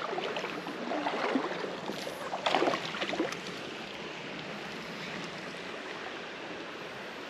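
Shallow creek water running steadily over a riffle, with a few louder, irregular noises in the first three seconds before it settles to an even rushing.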